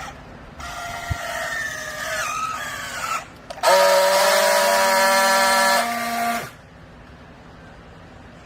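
A machine's pitched whine that wavers and slides for about two and a half seconds, then after a short break a louder, steady tone for about three seconds that stops abruptly.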